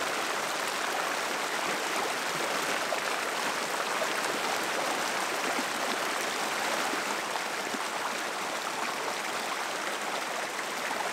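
A shallow river running over rocks: a steady rushing hiss of flowing water.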